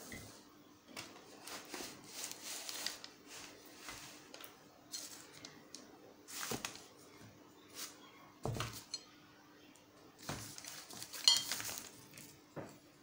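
Scattered light clinks and knocks of painting things being handled around a glass water jar and a china plate palette, the sharpest near the end.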